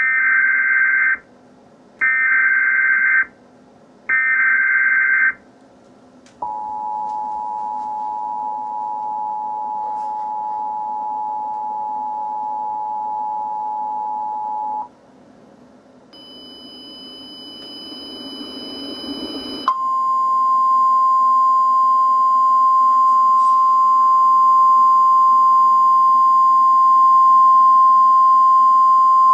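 Emergency Alert System tones opening a tornado warning: three one-second bursts of the SAME digital header, then the two-tone attention signal held steady for about eight seconds. After a rising hiss with faint high tones, a single steady alert tone, the NOAA Weather Radio 1050 Hz tone, sounds for about ten seconds and cuts off near the end.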